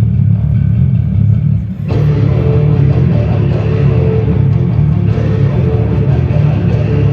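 Loud rock music with a heavy bass line and guitar; about two seconds in, a fuller section with higher guitar parts comes in.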